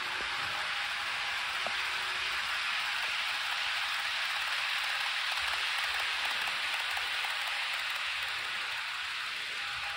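Model train of tank wagons rolling past on ballasted model track: a steady fine clatter of many small wheels on the rails, swelling slightly around the middle as the wagons pass closest.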